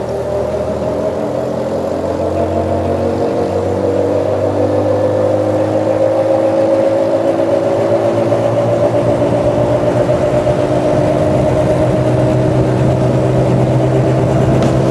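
A road vehicle driving steadily: a whine that slowly rises in pitch over a low hum and road noise, growing gradually louder.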